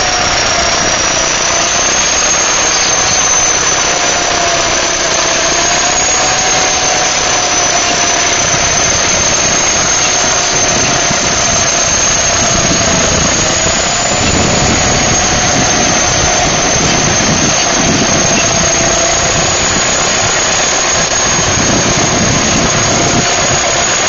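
Caterpillar D7 crawler bulldozer's diesel engine running under load as it pushes dirt, with a steady high squeal that wavers slightly in pitch throughout. The low rumble swells about halfway through and again near the end.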